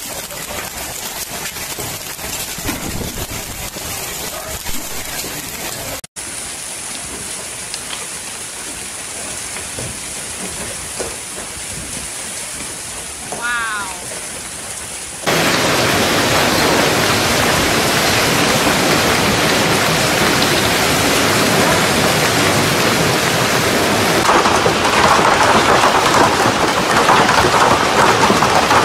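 Heavy rain and hail falling steadily. About fifteen seconds in the sound cuts to a much louder, denser downpour beating on a car, heard from inside it, and it grows louder still near the end.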